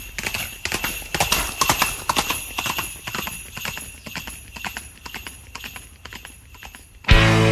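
Horse hooves clip-clopping with jingling sleigh bells, a sleigh-ride sound effect. Guitar-backed music cuts in suddenly near the end.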